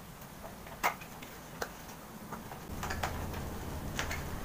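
A few sharp clicks and taps from a cardboard riflescope box being handled and opened, spaced irregularly. A low steady hum comes in about two-thirds of the way through.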